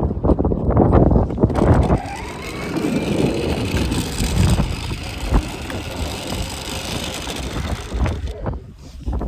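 Kids' 12-volt Yamaha ride-on ATV driving along pavement: its electric drive and hard plastic knobby wheels running over asphalt. Wind buffets the microphone for the first two seconds, and the running noise eases near the end.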